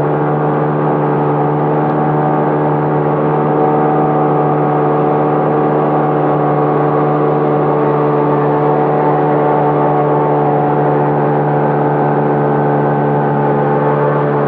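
Motorboat engine running at a steady cruising speed: a loud, even drone that holds one pitch throughout.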